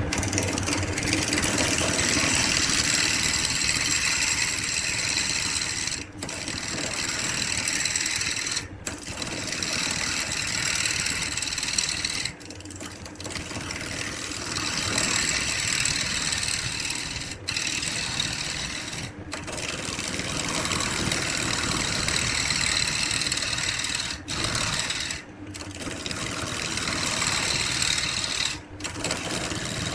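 An electric woodworking power tool running steadily under load, in several back-to-back clips separated by brief sharp breaks.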